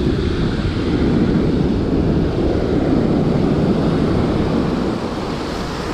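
Heavy sea surf breaking and washing up the shore in a steady low rush, with wind rumbling on the microphone.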